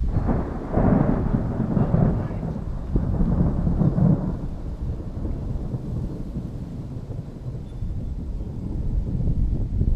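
A long roll of thunder, loudest and sharpest over the first four seconds, then a lower rumble that dies down and swells again near the end.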